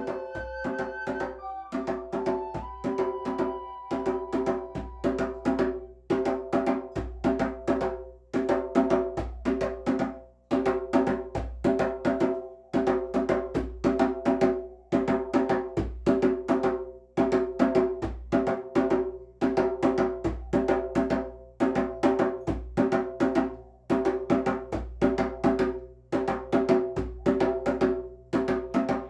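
Music from a pitched percussion instrument with a wood-block-like sound, struck in fast, steady repeating patterns on a few notes.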